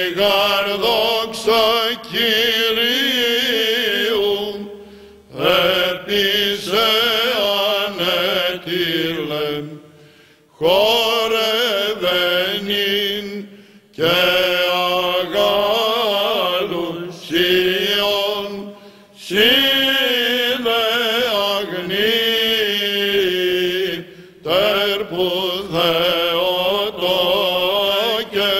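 Male cantors chanting Byzantine church chant: an ornamented, wavering melody sung over a steady held low drone note (the ison), in phrases a few seconds long separated by short breaks.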